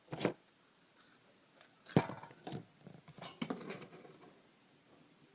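Handling noises from cleaning a TV remote's circuit board: a sharp click about two seconds in, then a few small knocks and rubbing sounds of hard plastic parts being handled and wiped.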